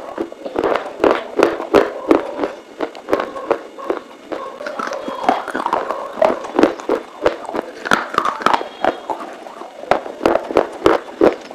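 Close-miked crunching of dry clay being bitten and chewed: a steady run of sharp cracks, several a second, with wet mouth sounds between them.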